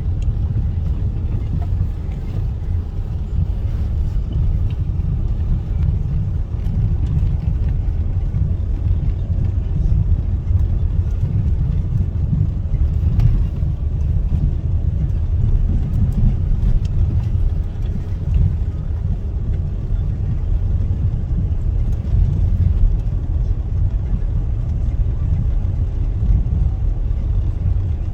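Car on the move: a steady low road rumble.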